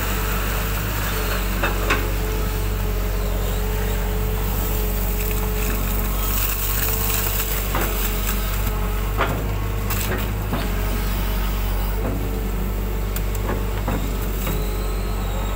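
Hitachi hydraulic excavator running steadily under work, a constant engine hum with a steady tone over it, while the bucket digs mud out of a ditch and dumps it on the bank, with sharp knocks and clanks now and then.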